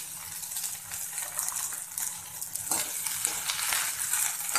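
Chopped onions sizzling in hot oil with whole spices in a kadhai, the tempering (tadka) for a dal. A spoon stirring them scrapes and knocks against the pan several times in the second half.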